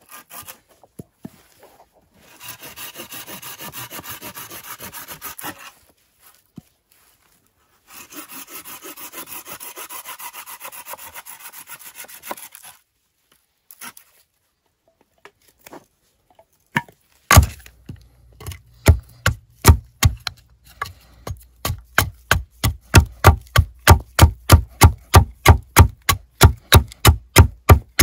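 A hand saw cutting wood in two stretches of steady back-and-forth strokes. From about two-thirds of the way in, a run of sharp chopping blows on wood, about two a second, which are the loudest sound.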